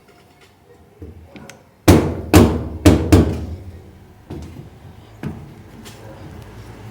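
Four loud sharp knocks in quick succession, then two lighter ones, from hard strikes on the washing machine's parts while its small plastic latches are being freed.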